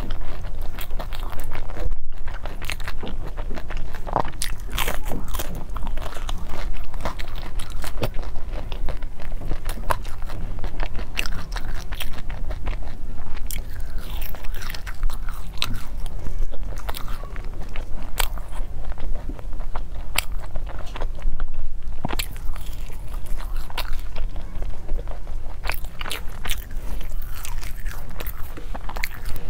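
A person biting into and chewing crunchy pastry close to the microphone: many sharp crunches and crackles in quick succession, all the way through.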